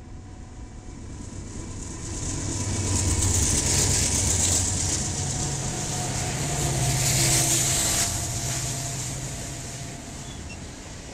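BNSF diesel locomotives leading a double-stack container train pass close by: a low engine rumble with the hiss of steel wheels on rail. It swells to its loudest while the locomotives go by, then eases after about eight seconds as the stack cars roll past.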